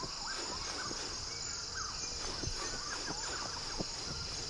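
Rainforest ambience: a steady high-pitched insect drone, with scattered short, falling bird chirps throughout.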